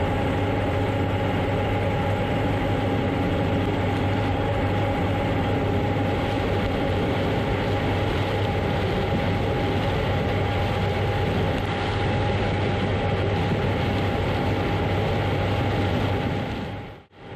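John Deere X9 1000 combine harvester running steadily while harvesting corn: a steady engine hum under a constant high whine from the machine. The sound drops out briefly near the end.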